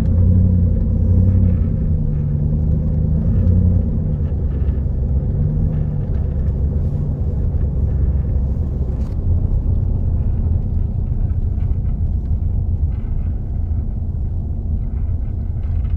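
Car driving, heard from inside the cabin: a steady low rumble of engine and tyres on the road. The engine note shifts in pitch over the first few seconds.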